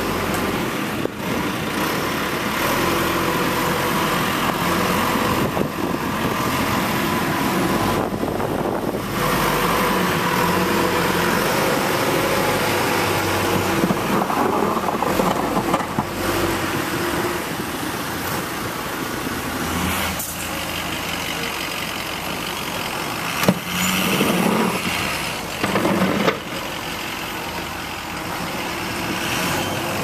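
Diesel engine of a backhoe loader running steadily as it pushes snow with its front bucket.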